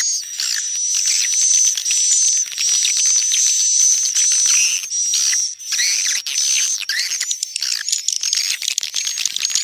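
Swiftlet lure call: dense, rapid high twittering and chirping of swiftlets over a steady high whistle-like tone. This is the kind of call played to draw swiftlets into a nesting house.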